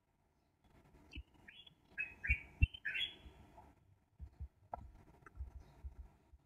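A bird chirping: a quick series of about six short chirps, each dropping in pitch, between about one and four seconds in. Soft low knocks and clicks sound around them.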